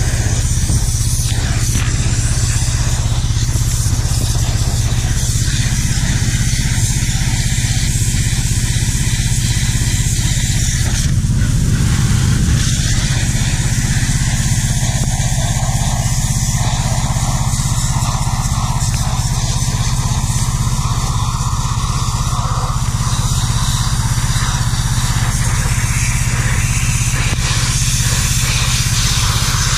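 Pressure washer running steadily, its motor humming under the hiss of the high-pressure water jet blasting grease off engine parts.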